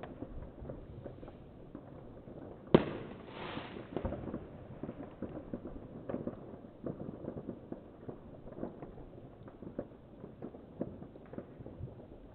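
New Year's Eve firecrackers and fireworks going off across the neighbourhood: many scattered small pops and cracks, with one much louder bang a little under three seconds in, followed by a short hiss.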